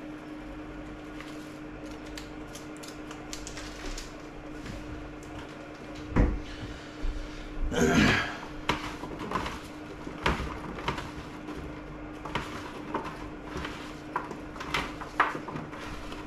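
Chopped vegetables being tossed and mixed by hand on a metal oven tray: irregular light clicks and knocks of the pieces against the tray, with a louder knock about six seconds in and a longer scrape around eight seconds.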